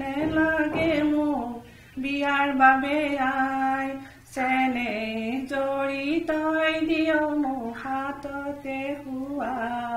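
A woman singing a slow song solo, with no instruments, in long held notes. She pauses briefly for breath about two and four seconds in, and again near the end.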